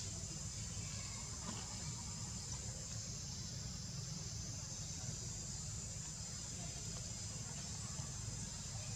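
Steady high-pitched drone of insects, with a low steady rumble underneath.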